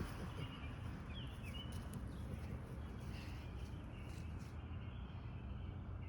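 A few short bird chirps over a steady low rumble.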